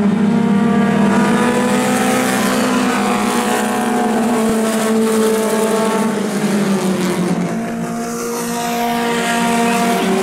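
Mini stock race cars, several four-cylinder engines running hard together as they lap a dirt oval, with a steady overlapping drone of engine tones. The sound dips briefly about three-quarters of the way through, then swells again as cars come past close by.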